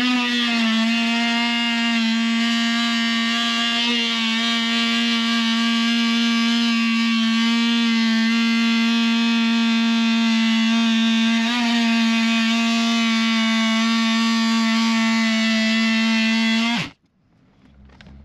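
Oscillating multi-tool with a 65 mm blade cutting through the inner skin of a caravan sunroof window: a loud, steady buzz at one pitch that stops abruptly near the end.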